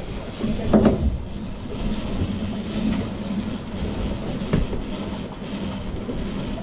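Fishing boat's engine running with a steady low drone under wind and water noise, with a knock about a second in and another after about four and a half seconds.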